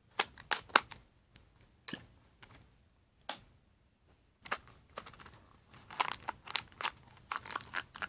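Small plastic Shopkins blind pack crinkling as it is handled and torn open by hand: a few sharp crackles at first, then denser crinkling from about halfway.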